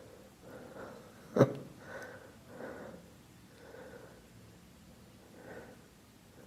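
Soft breaths close to the microphone, about five short ones, with a single sharp click about a second and a half in that is the loudest sound.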